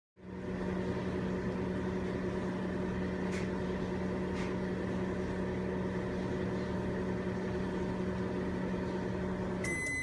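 Microwave oven running with a steady hum and two faint ticks partway through. Near the end the hum cuts off and a long, high electronic beep sounds as the cooking cycle finishes.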